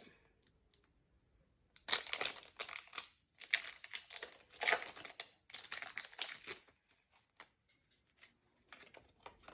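Foil wrapper of a Pokémon trading card booster pack crinkling and tearing as it is opened, in a run of rustles for a few seconds after a quiet start, then a few faint handling sounds.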